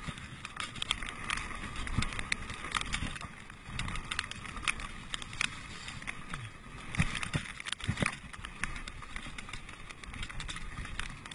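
Mountain bike ridden fast over a gravel trail: tyres crunching on the surface and the bike rattling, with many sharp knocks as it goes over bumps.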